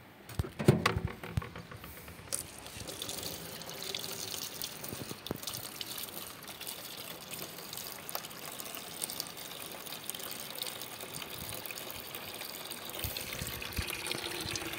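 Water running steadily from a wall tap into a plastic bucket in a sink. A few sharp knocks and clatters about a second in.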